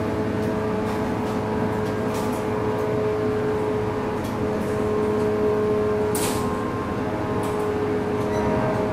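Running sound inside a JR 185 series electric train at steady speed: a steady whine from the MT54 traction motors and gears over the deep rumble of wheels on rail. Faint clicks of the wheels passing rail joints come now and then, and one sharper brief burst about six seconds in.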